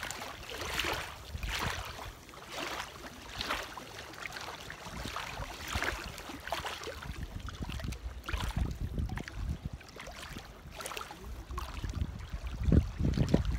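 Small waves lapping and splashing at the lake's edge, about once a second, with wind buffeting the microphone in a low rumble that grows heavier near the end.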